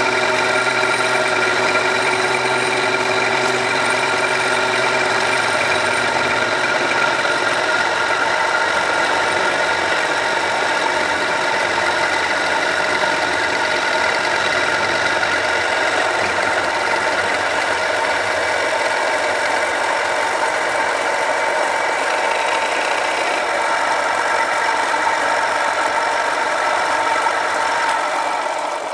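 Home-built metal lathe running under power, its turning tool taking a facing cut across a large spinning metal disc: a steady machine drone with several held tones over a hiss of cutting. It begins to die away at the very end.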